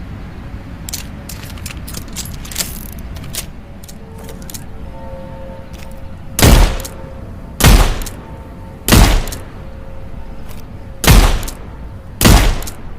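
A few light clicks, then five shots from a Colt .38 snub-nose revolver: three evenly spaced about a second apart, a longer pause, then two more.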